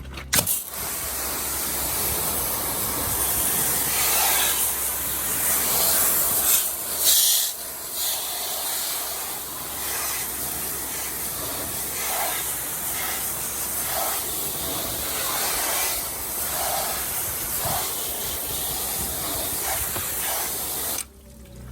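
Pressure washer jet spraying down an ATV engine, rinsing off aluminum cleaner and brightener: a loud, steady hiss of water that starts suddenly just after the beginning, swells for a moment about seven seconds in, and cuts off near the end. A steady low hum runs underneath.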